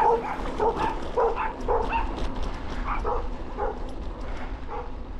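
A dog barking over and over in quick succession, about two to three barks a second, growing fainter, over a low wind rumble on the microphone.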